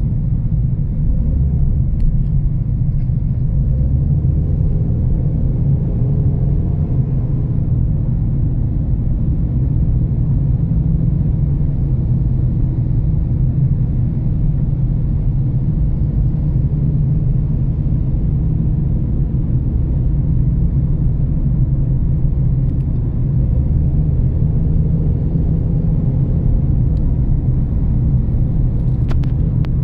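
Steady low rumble of a car driving at an even pace, engine and road noise heard from inside the cabin. A faint click near the end.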